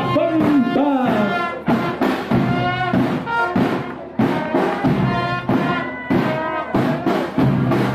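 Live brass band playing a march: trumpets and other brass carrying the tune over snare and bass drum strokes.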